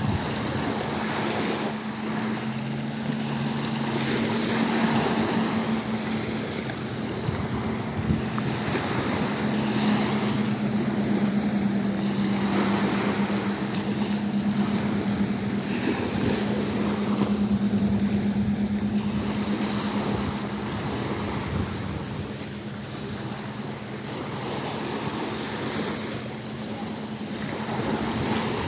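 Speedboat's 300-horsepower engine running at high speed across open water, a steady drone whose pitch dips slightly about a third of the way in, over a constant wash of wind and water noise.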